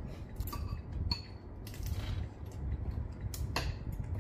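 Spoons and bowls clinking and tapping lightly several times at the table, over a low steady hum.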